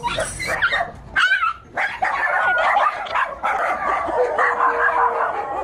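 Dog barking and yelping in quick, overlapping calls.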